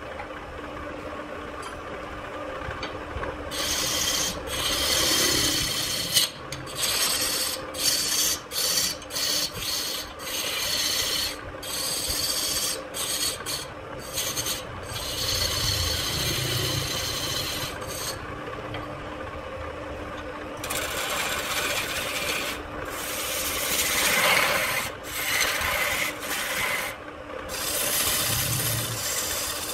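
Electric wood lathe running with a steady hum while a long-handled turning tool scrapes and cuts a spinning red-wood vase blank. The rasping cut begins a few seconds in and comes in repeated passes with short breaks, pausing briefly about two-thirds of the way through before starting again.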